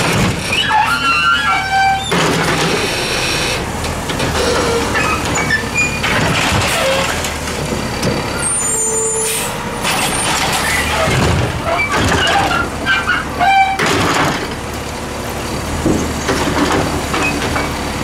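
Peterbilt 320 CNG garbage truck idling while its Heil DuraPack 7000 automated side-loader arm grabs and lifts a trash cart, with scattered squeaks and clunks from the arm and cart. A burst of air hiss comes a little before halfway.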